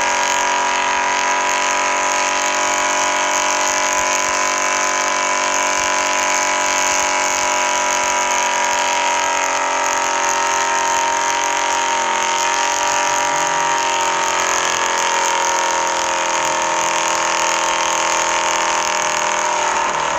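Truck engine held at high revs for a long burnout, a loud steady drone that wavers a little in pitch partway through.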